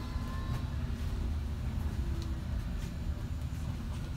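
Steady low rumble of a London bus driving along, heard from inside the passenger cabin, with a few faint clicks.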